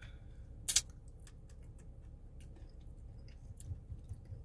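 One sharp click about a second in, then faint, irregular small clicks and ticks over a low steady rumble.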